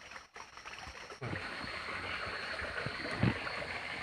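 Water noise as the camera goes under the river surface a little after a second in: a steady, muffled underwater rush with scattered dull knocks from the diver's movements, the strongest about three seconds in.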